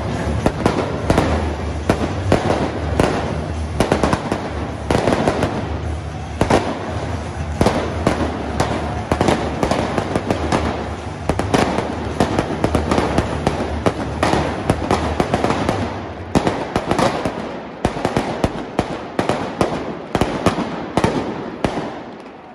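Firecrackers going off in a football stadium stand, a rapid, irregular string of sharp bangs. A low steady hum sits underneath and stops about 16 seconds in.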